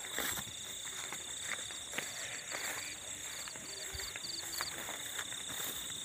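Crickets and other night insects chirping: a steady high trill under a faster pulsed chirping that stops about three-quarters of the way through.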